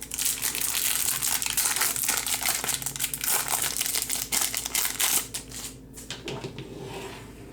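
Foil wrapper of a Topps Chrome trading-card pack crinkling and crackling as it is handled, for about five and a half seconds, then dropping to quieter rustling.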